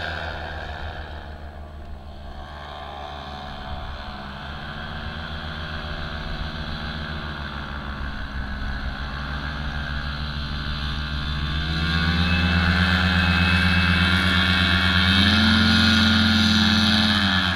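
Paramotor engine and propeller running steadily, growing louder as the wing comes close. The pitch rises about twelve seconds in and again near fifteen seconds, as the throttle is opened, then drops just before the end.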